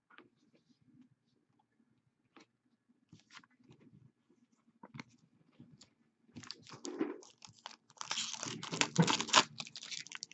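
Trading cards and their packaging being handled: a few faint clicks and rustles, then from about six seconds in a louder, dense crinkling and crackling of wrapper or plastic sleeves, busiest near the end.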